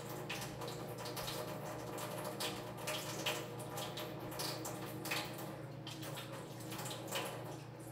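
Soft, irregular handling noises of hands spreading olive-oiled bread dough out in a pan, over a steady low hum.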